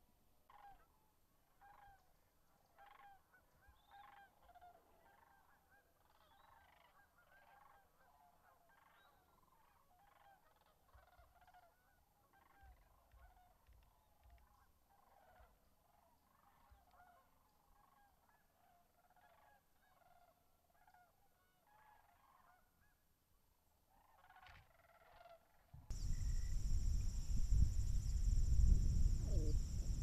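A flock of geese calling: many short, overlapping honks, fairly faint. Near the end the sound cuts abruptly to a loud low rumble with a steady high trill.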